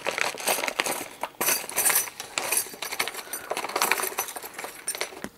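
Small clips clinking and rattling inside a plastic zip bag, with the bag and its packaging crinkling as they are handled and opened; irregular clicks throughout.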